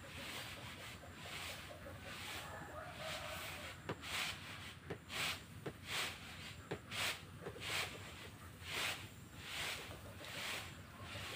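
Unhusked rice grain poured from a raised bucket in front of an electric fan to winnow it, falling in a hissing stream that swells and fades about once a second, with a few light clicks.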